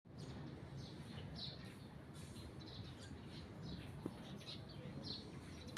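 Birds chirping, short high calls repeated every half second to a second over a low background rumble, with one brief sharp click about four seconds in.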